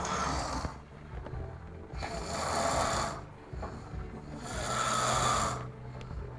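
A person snoring: three rasping snores about two seconds apart, each lasting around a second, over faint background music.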